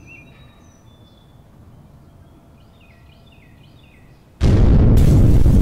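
Birds chirping faintly over quiet outdoor ambience, then about four seconds in a sudden, loud explosion sound effect: a bomb-like blast that keeps rumbling.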